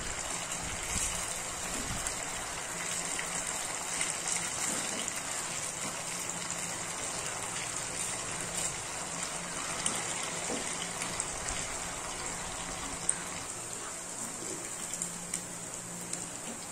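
Beef pieces deep-frying in hot oil in a kadai, with a steady sizzle of bubbling oil. A fork turning the pieces gives a few light clicks.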